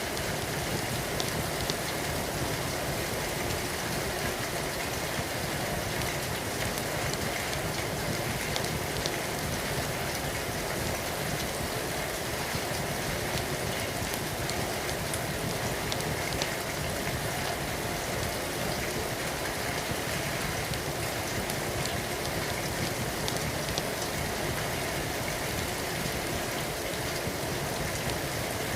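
Steady rain falling without a break, with a few faint, sharp clicks scattered through it.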